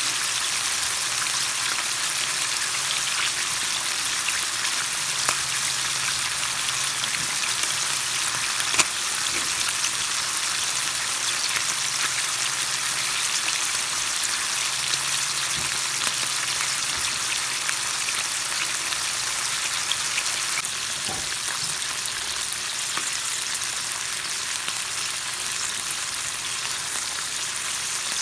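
Food frying in hot oil: a steady sizzle with a few scattered clicks, one louder about nine seconds in.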